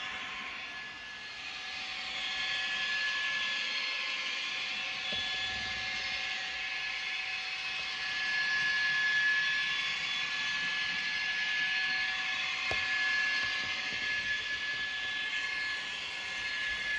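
Zimo sound decoder in a TT-scale BR 131 model locomotive playing its diesel engine sound through the small onboard speaker: a steady running drone with a high whine, swelling and easing slightly, and one click late on.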